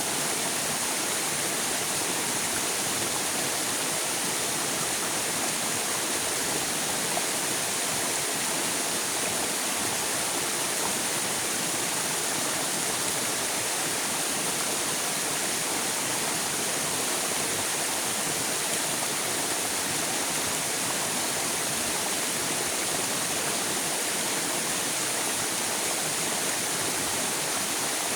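River water flowing steadily, a continuous even rushing.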